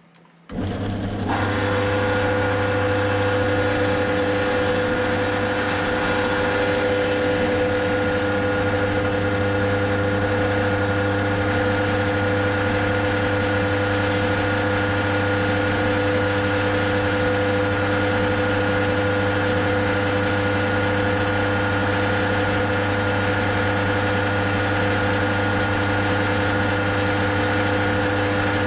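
Bench pillar drill's electric motor switching on and running steadily with a low hum, set to a slow 790 rpm with a 1.5 mm bit for drilling small holes through a metal cab.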